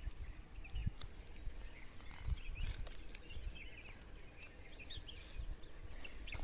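Small birds chirping, many short calls throughout. Close by, low thumps and rustling come from a cord net and rope being handled and untangled.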